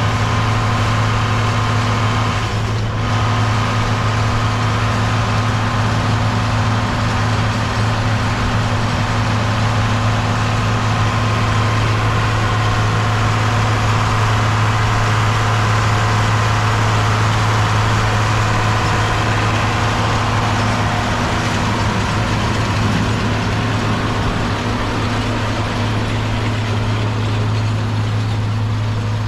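John Deere 4230 tractor's six-cylinder diesel engine running steadily at an even speed: a low, constant drone with a steady higher whine above it.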